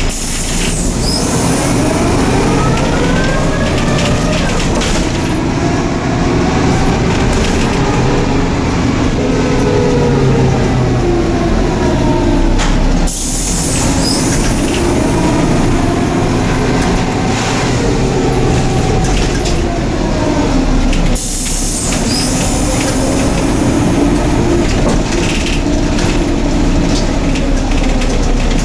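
Interior noise of a Neoplan/ΕΛΒΟ N4007 city bus under way: the engine and driveline whine rising and falling in pitch as the bus speeds up and slows. Twice the sound briefly drops away and a short air hiss follows.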